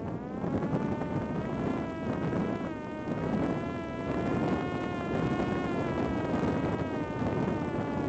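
Parrot Disco fixed-wing drone's electric motor and propeller whining in flight, the pitch wavering slightly up and down over a steady rushing noise.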